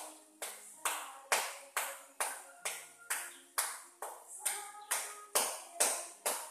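Hands striking in a steady, even rhythm, a little over two sharp claps or slaps a second.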